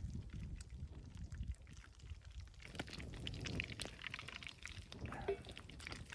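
Faint crackling from an open wood campfire and hot oil in a cast-iron skillet, with sharp snaps throughout and a denser spell of fine crackle starting about three seconds in, over a low rumble in the first couple of seconds.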